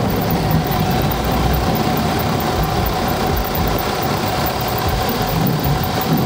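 Onboard sound of a radio-controlled car driving over tarmac: its motor running steadily with a constant tone over a rough rumble from the wheels and chassis.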